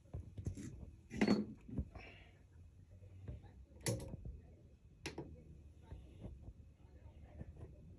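Several separate short knocks and clicks, the loudest about a second in and another near four seconds in, from objects being handled and set down on a work surface.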